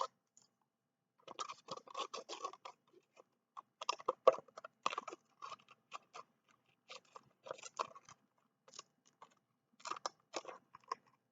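Small curved scissors of a Leatherman Micra multi-tool snipping through sandpaper in runs of quick cuts, four or so bursts with short pauses between. The blades are being honed by the abrasive paper.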